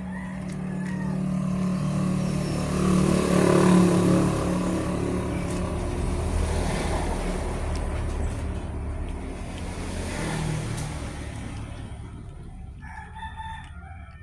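Motor vehicle passing, its engine hum and road noise swelling to a peak a few seconds in, then fading away. Near the end a rooster crows.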